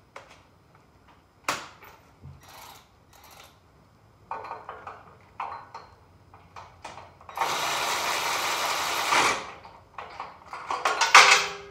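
Cordless power driver spinning a socket on a long extension against a mower engine's spark plug: one steady whirring run of about two seconds, a little past halfway. Metal clicks and knocks of the socket and extension come before it, and a sharp clatter near the end is the loudest sound.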